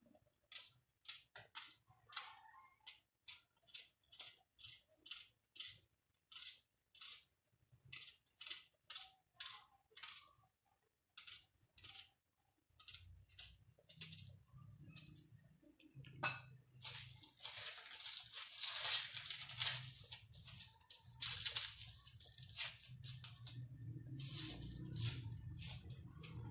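Raw onion being sliced in the hand with a kitchen knife, the blade crunching through it in quick separate cuts about two a second. In the second half, the dense crackle of dry onion skin being peeled off.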